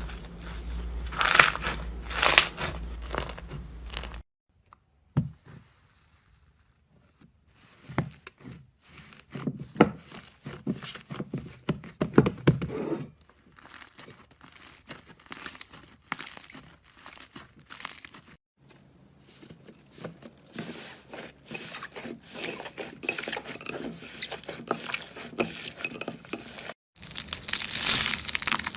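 Slime being squeezed, poked and pulled by hand, giving dense crackling, clicking and crunchy sounds. The texture changes abruptly a few times, with one near-quiet stretch early on.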